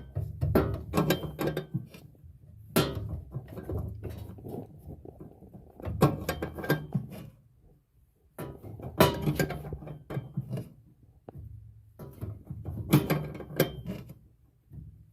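Wrench working on a gas line fitting: bursts of metallic clicks and clanks, about five clusters with short pauses between, as a fitting is tightened.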